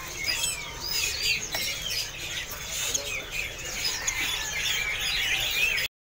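Many caged songbirds chirping and whistling at once, a dense mix of short rising and falling whistled notes. The sound cuts out for a moment near the end.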